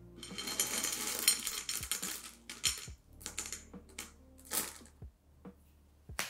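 Ruby chocolate melting wafers clattering in a glass bowl as a hand scoops them up: a dense rattle for about two seconds, then scattered clicks as the wafers drop back into the bowl.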